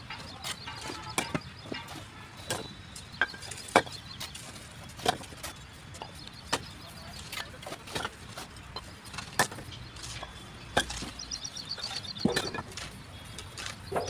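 Fired clay bricks knocking and clinking against one another as they are picked up off a loose pile, in sharp irregular knocks about every second or so.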